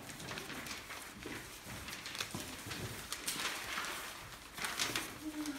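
Paper ballots rustling as sheets are flipped, slid and laid down on a table, in short irregular scratchy swishes.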